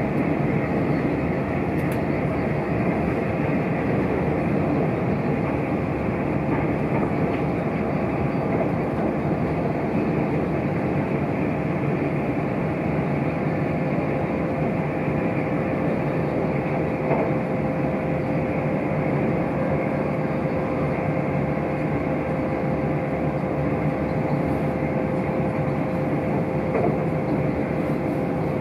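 Passenger train at speed, heard from inside the carriage: steady running noise of the wheels on the track with a constant hum.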